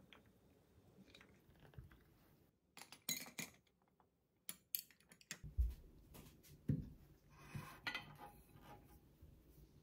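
A glass stir stick clinking against the inside of a glass mug of highball, a quick run of sharp clinks. After about five seconds, plates are set down on a table with a few low thumps and light knocks.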